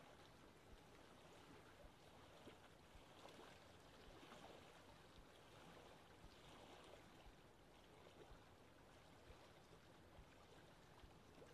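Near silence: a faint steady background hiss with a few soft ticks.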